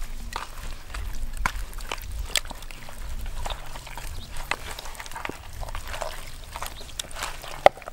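Wet squelching and slapping of hands working a sauce marinade into a raw chicken in a plastic basin: irregular small squishes and clicks, with one sharper slap near the end.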